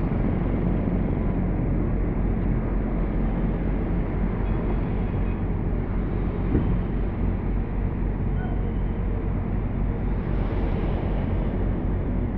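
Mercedes-Benz coach's diesel engine idling steadily: an even low rumble while the bus stands waiting to depart.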